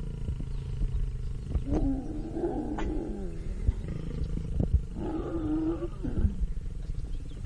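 Lions growling during mating, in two bouts: the first about two seconds in and the second about five seconds in, over a steady low rumble.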